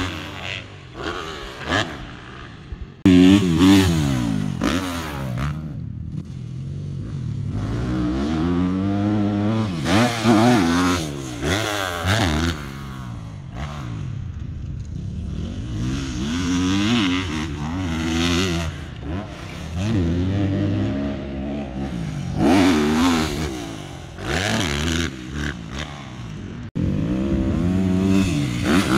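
Yamaha YZ250F four-stroke single-cylinder motocross bike engine revving hard and backing off again and again as it rides the track, its pitch rising and falling with each burst of throttle.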